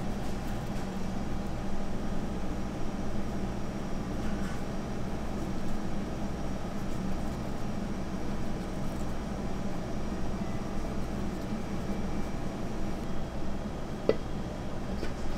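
Steady mechanical hum of a running machine, with a couple of faint clicks near the end.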